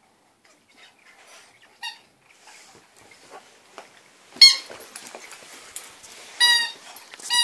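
A Staffordshire bull terrier chewing a squeaky duck toy, squeezing out about four short, high squeaks, the loudest a little past halfway through. Faint chewing and rustling sounds fill the gaps between squeaks.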